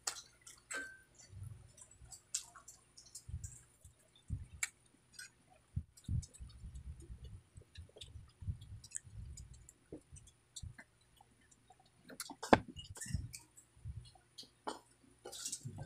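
Close-miked chewing of crispy fried chicken skin, with wet mouth clicks and small crunches. About halfway through comes a run of swallowing gulps as cola is drunk from a glass, and a little later one sharp knock.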